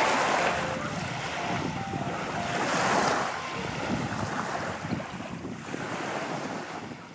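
Small waves washing up on a sandy beach. The wash swells just after the start and again about three seconds in, with wind buffeting the microphone.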